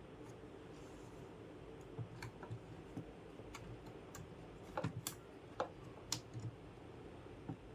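Irregular light clicks and taps from handling a computer, about a dozen, the sharpest around the middle, over a steady low hum.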